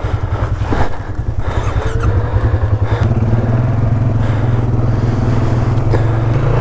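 ATV engine running, uneven and pulsing at first, then settling into a steadier, slightly higher drone about three seconds in.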